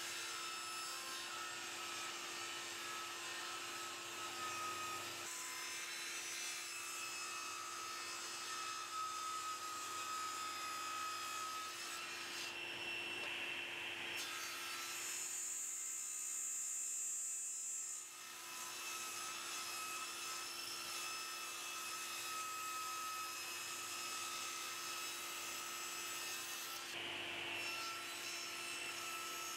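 Table saw running with a steady hum while wood is pushed through the blade, the cutting noise changing abruptly several times; a high whine comes in briefly about halfway through.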